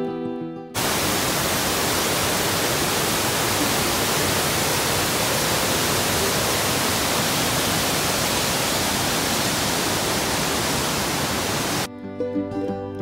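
Waterfall cascading over rock ledges: a steady, even rush of water that cuts in suddenly about a second in and stops abruptly near the end, with guitar music before and after it.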